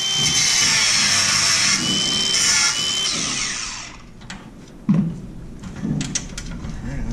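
Angle grinder grinding at the metal hinge bracket of an aluminum step bench, a steady hiss with a high whine, stopping about four seconds in. After it, a few light knocks and clicks of handling the bracket.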